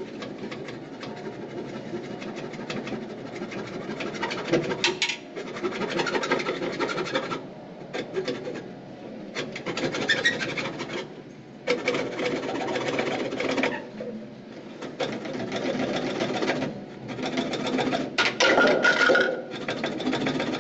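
Rapid back-and-forth scraping on PVC drain pipe, in bursts of a few seconds with short pauses, as a fitting or pipe end is worked by hand.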